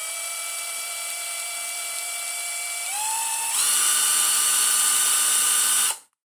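Cordless impact wrench's DC motor running with a steady high-pitched beep over its whine. The beep is the normal 2–3 kHz PWM speed-control signal. The motor speeds up in two steps about three seconds in, then stops abruptly near the end.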